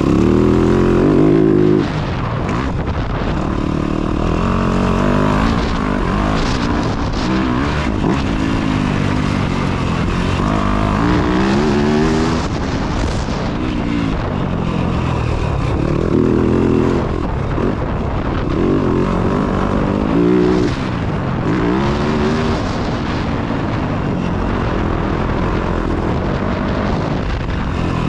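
Dirt bike engine under load, its pitch rising and falling again and again as the throttle is worked and gears change, over a steady rushing noise.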